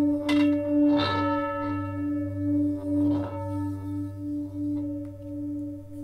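Himalayan singing bowls ringing, with a strong low tone that pulses about twice a second over a deeper hum and several higher overtones. A mallet strikes the bowls three times in the first three seconds, each strike adding brighter ringing that then dies away.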